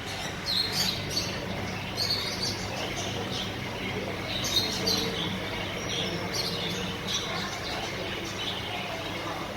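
Caged pet birds chirping and tweeting, many short high calls overlapping, over a steady low hum.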